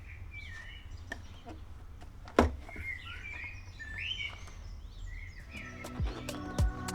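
Birds chirping over faint background noise, with a sharp click a little over two seconds in. Near the end, music with a steady thumping beat comes in.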